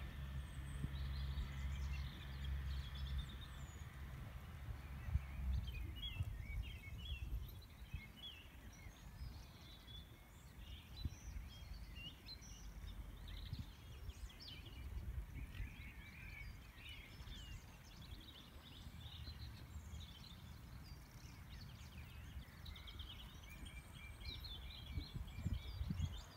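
Outdoor ambience of small birds chirping and singing in short, scattered calls. A low, steady rumble runs under the first several seconds and then fades.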